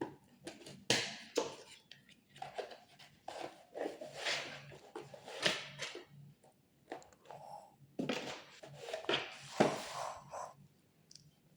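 Packaging of a camera box being handled and opened: irregular rustling, crinkling and scraping with small clicks as the seal is undone.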